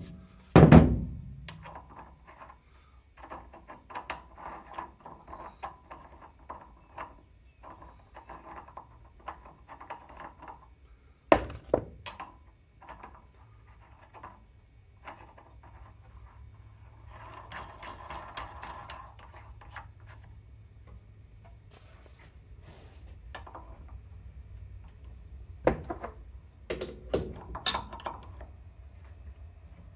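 A mallet strikes the lathe's spindle pulley once, hard, to seat it flush. Light clicks and clatter of handling on the pulleys follow, with two sharp metal knocks about 11 seconds in. Near the end a spanner wrench knocks and clinks on the spindle nut, over a low steady hum.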